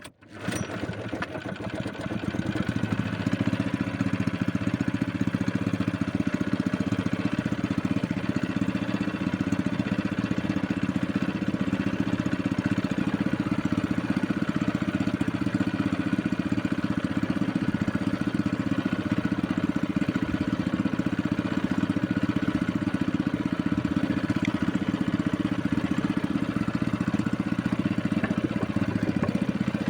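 Small boat engine running steadily at a constant speed, coming in abruptly at the start.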